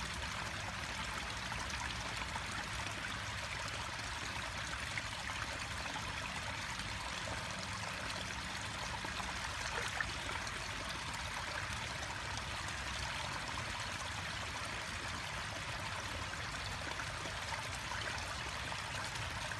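Steady running water trickling and splashing into a garden koi pond, unbroken throughout.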